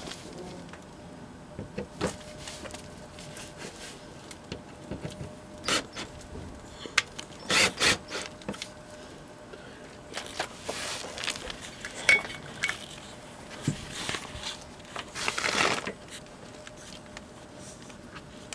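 Plastic engine undertray (sump shield) being handled and pushed up into its clips under a car: irregular knocks, clicks and scraping rubs, several louder ones in the middle of the stretch.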